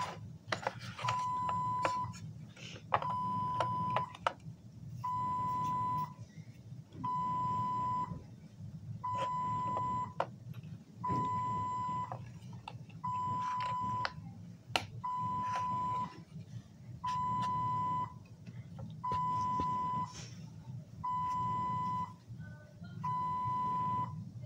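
A medical equipment alarm beeping steadily: one high electronic tone about a second long, repeating every two seconds. Between the beeps come light clicks and taps of plastic Play-Doh tools, over a low steady hum.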